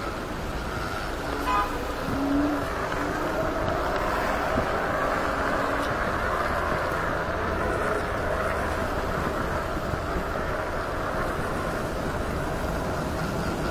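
Steady wind and road noise from a Kaabo Wolf Warrior 11 electric scooter riding through city traffic. A short horn toot comes about a second and a half in, with a brief lower tone just after.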